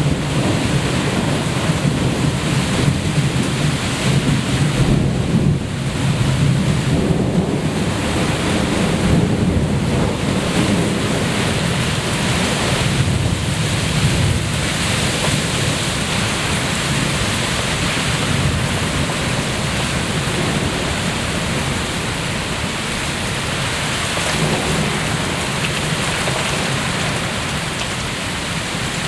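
Heavy thunderstorm rain pouring down, with a long low rumble of rolling thunder through roughly the first half that then eases off, leaving a steady rain hiss.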